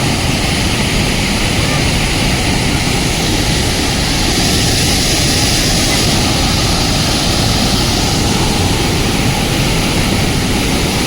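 Loud, steady roar of a large waterfall, the water pouring down with great force.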